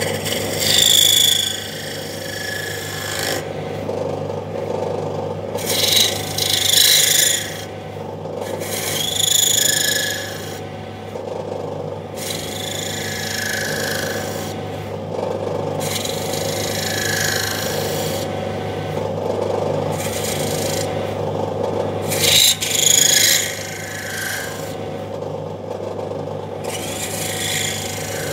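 Small lathe running with a steady hum while a hand-held scraper blade shaves the spinning workpiece, curling off shavings. The cutting is a scratchy rasp that swells and eases in passes, loudest about a second in, around six to seven seconds in, and around twenty-three seconds in.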